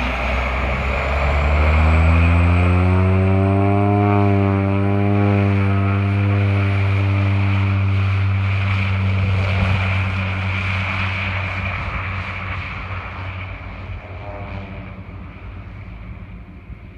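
Pacific Aerospace Cresco topdressing plane's turboprop engine and propeller powering up for takeoff. The pitch and loudness rise over the first few seconds, hold steady through the takeoff run, then fade steadily as the plane moves away.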